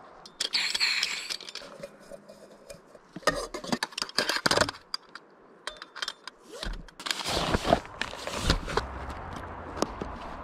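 Camping cookware being handled and packed: a short pour of water from a plastic bottle into a cup near the start, then clinks, knocks and scrapes of a stove and pot kit, and the rustle of a nylon dry bag in the last few seconds.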